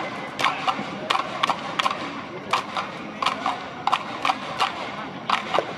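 Sharp claps or knocks from the stands, irregular at about two or three a second, over a steady crowd murmur at a baseball stadium while a pitch is made.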